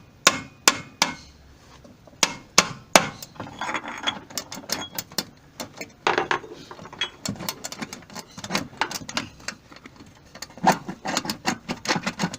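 Hammer blows on a steel block set over a water-seized bearing in a Mabe washing machine transmission, driving the bearing down off the shaft. Sharp metal strikes come about three a second at first, then lighter, quicker taps and clatter.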